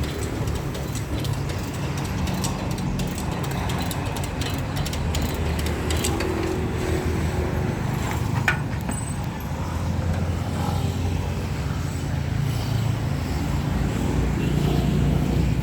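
An engine running steadily with a low rumble, with scattered ticks and one sharp click about halfway through.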